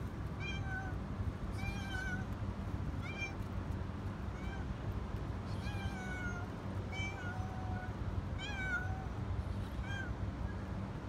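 Tabby cat meowing repeatedly, short meows about once a second, over a steady low background rumble.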